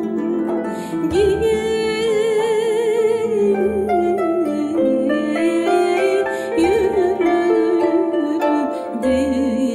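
Live folk music from two concert harps plucking an accompaniment, with a woman's voice singing a long wavering melody with vibrato over them. Deep low notes come in every couple of seconds.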